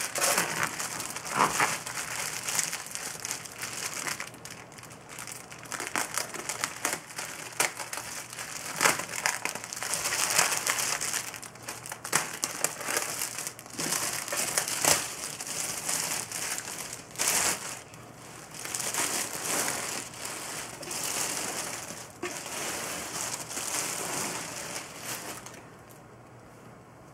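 Thin plastic bag crinkling and crackling as hands pull it off a speaker. It stops just before the end.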